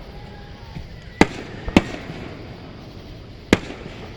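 Fireworks bursting: three sharp bangs, the first about a second in, the second half a second later and the third near the end.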